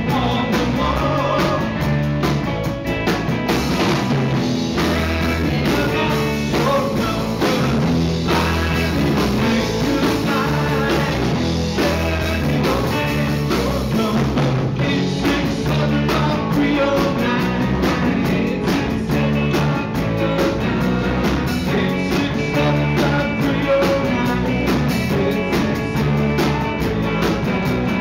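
Live rock band playing with electric guitars and a drum kit, a man singing into a microphone over them.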